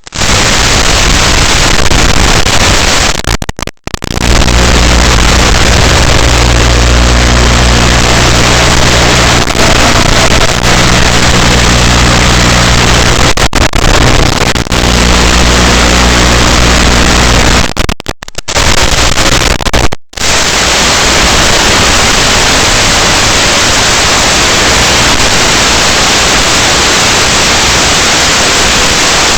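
Loud, steady hiss of radio static, typical of an analog FPV drone's video-receiver recording. A low hum runs under it through most of the first part, and the signal drops out briefly three times.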